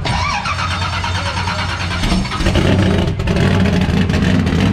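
The 1988 Monte Carlo Aerocoupe NASCAR stock car's carbureted V8 running loud and steady, with the hood up. The engine grows stronger and louder about two seconds in.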